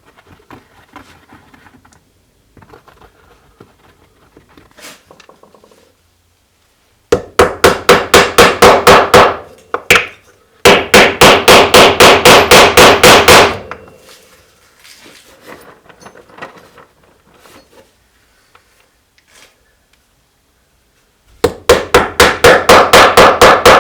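Three runs of rapid, evenly spaced striking, about seven loud strikes a second, each with a short ringing note, like fast hammering at a workbench. Fainter scattered knocks and taps of work come in between the runs.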